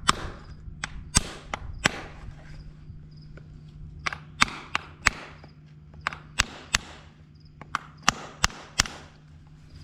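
A series of about fifteen sharp knocks or snaps at an uneven pace, some in quick pairs, each with a short rasping tail, over a steady low hum.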